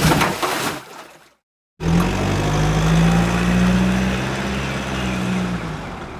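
A short noisy burst, then after a brief gap a vehicle engine sound effect comes in suddenly, running steadily and slowly fading out toward the end.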